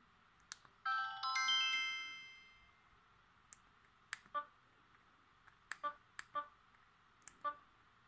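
LG U8330 flip phone playing a short chime preview: a quick run of bright ringing notes about a second in that rings out over about two seconds. Then short keypad beeps, mostly in pairs, as the menu keys are pressed.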